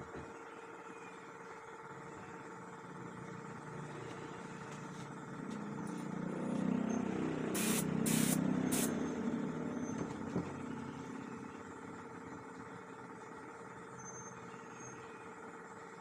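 Air spray gun hissing in three short blasts a little under eight seconds in, within a louder rushing swell, over a steady mechanical hum.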